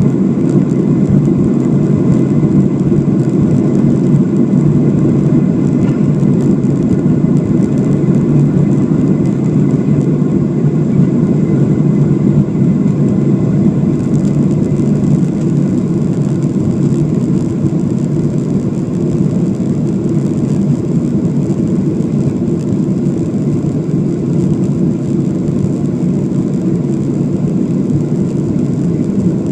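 Aircraft engines and rushing air heard from inside the cabin during takeoff: a loud, steady, low rumble that barely changes.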